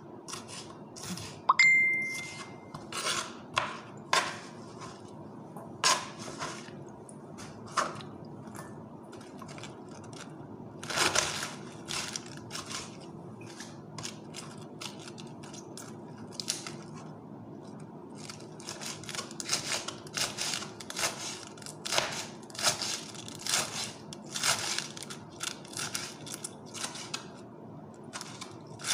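Kitchen knife cutting on a plastic cutting board: scattered chopping strokes, then a quicker run of crisp, crunching cuts through a head of lettuce in the second half. About two seconds in, a single clear ringing ding is the loudest sound.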